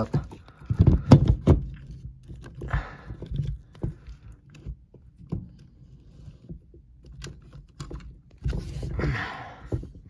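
Plastic knocks, clicks and scraping as a dishwasher's drain pump is handled and pushed back into its socket on the sump, with a cluster of heavier knocks in the first second and a half and a longer scrape near the end.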